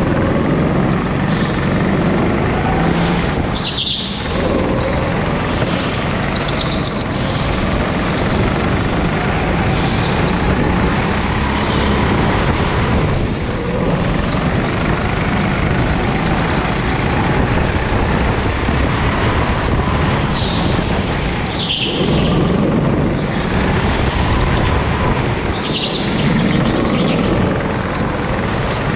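Rental go-kart running at speed, heard from the driver's seat, with the engine note rising and falling through the corners. Short high squeals come a few times.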